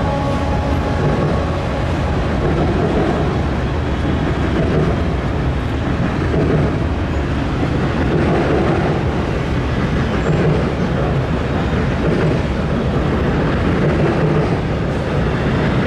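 Double-stack intermodal container train rolling across a steel girder bridge, its cars making a steady rolling noise.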